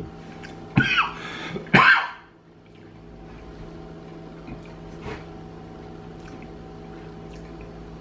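A man makes two short, throaty vocal sounds, about one and two seconds in. After that only a faint, steady room hum remains.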